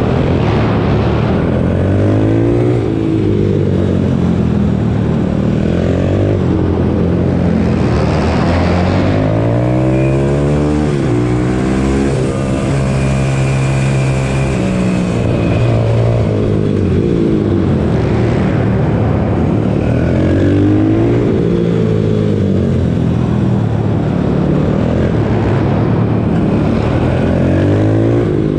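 Pit bike engine revving hard and easing off again and again as the bike is ridden through the corners of a track, its pitch climbing and dropping every few seconds. About halfway through the revs climb for longer and hold high before falling away.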